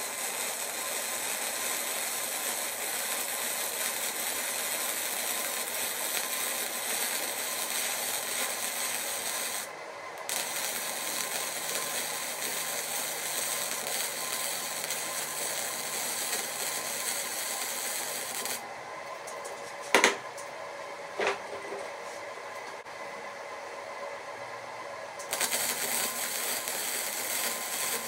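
Lincoln Pro MIG 140 wire-feed welder running flux-core wire with no shielding gas, a steady, noisy, spatter-heavy arc laying a bead. The arc stops briefly about ten seconds in and again for several seconds past the middle, when two sharp knocks sound.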